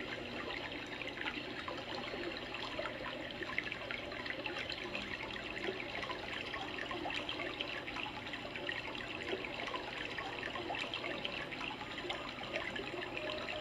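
Natural sound of water flowing steadily in a small creek, with many fine, irregular splashes.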